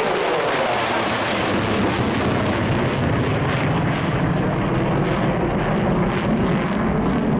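Loud, steady jet noise from a Mitsubishi F-2 fighter's engine as the jet pulls up overhead and climbs away.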